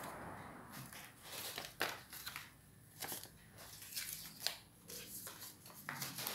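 Folded paper airplanes rustling and crinkling as hands handle and wave them, with a few sharp paper snaps.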